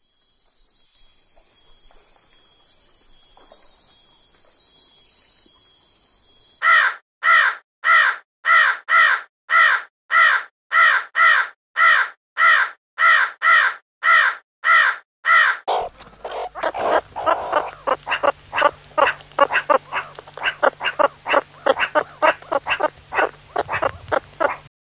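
Crickets chirring steadily and high-pitched. About seven seconds in, a crow starts cawing loudly in an even series of roughly two caws a second. From about sixteen seconds in come faster, overlapping caws over a low steady hum.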